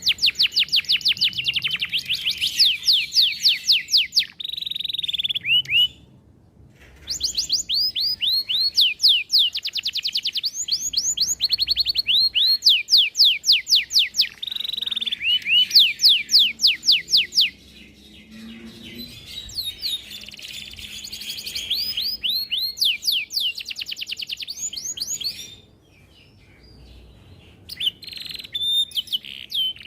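Domestic canary singing long, rapid rolling trills of repeated high chirps, with changes of phrase and two short pauses.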